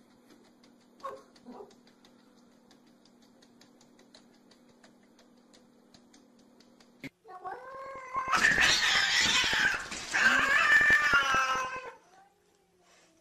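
Domestic cats caterwauling in a standoff through a glass door: loud, drawn-out yowls that waver in pitch and are harsh and noisy in places. The yowling starts about seven seconds in and lasts about five seconds. Before it there is only a faint low hum and a couple of soft short calls.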